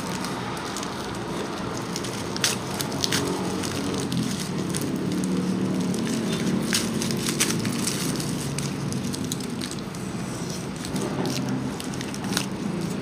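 Shredded paper packing filler and plastic wrapping rustling and crinkling as they are pulled apart by hand, with many sharp crackles throughout.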